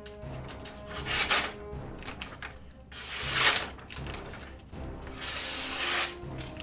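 Three long rasping strokes, about two seconds apart, as the blade of a folding knife is drawn across something, while the edge is checked for burrs. Faint background music underneath.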